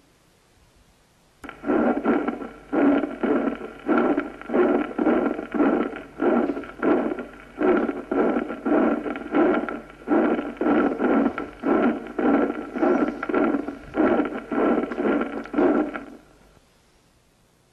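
Recorded heart sounds through a stethoscope with a double murmur: a murmur in systole and another in diastole on each beat, without wiping out the second heart sound, the sign of a double valve lesion in aortic or mitral disease. The swishes come evenly, about one every half second, starting about a second and a half in and stopping about a second before the end.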